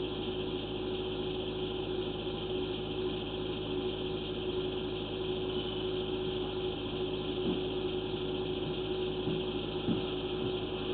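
Steady machine hum with one constant mid-pitched tone over a low, even rumble, and a few faint clicks near the end.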